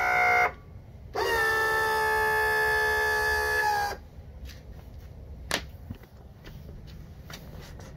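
Electric power-tilt motor of a Johnson 40 hp outboard whining as it tilts the outboard up: a short run of under a second, then a steady run of nearly three seconds. A single sharp click follows about halfway through, later on.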